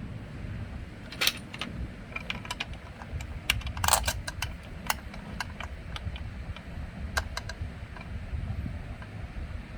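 Bolts and hand tools clinking as a motorcycle engine case is bolted back together: scattered sharp metal clicks, with a short rattle about four seconds in the loudest, over a steady low background rumble.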